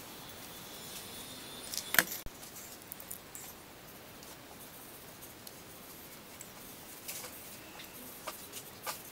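Small clicks and taps of painting tools being handled on a tabletop: one sharp click about two seconds in, then a few lighter clicks near the end, over faint room noise.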